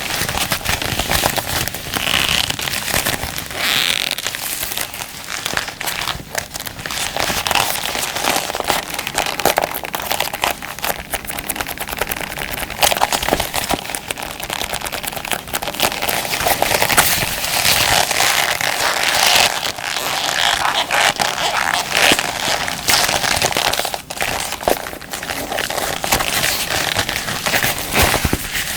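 Combat gloves handled and rubbed close to the microphone, giving a dense, continuous crinkling and crackling full of tiny clicks.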